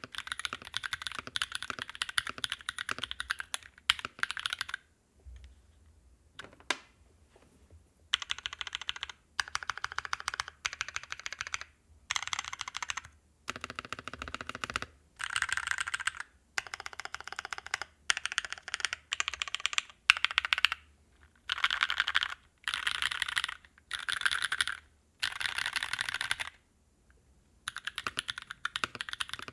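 Typing on an aeboards Constellation mechanical keyboard fitted with Naevy v2 long-pole tactile switches, the plate on an o-ring mount. Keystrokes come in rapid bursts of a second or two with short breaks, and a longer pause with a lone click a few seconds in.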